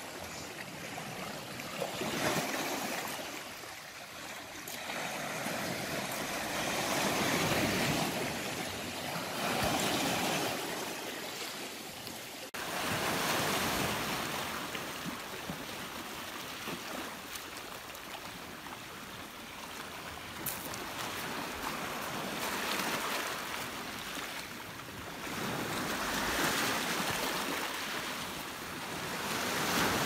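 Sea waves breaking and washing over rocks and pebbles at the shoreline, swelling and falling back every few seconds.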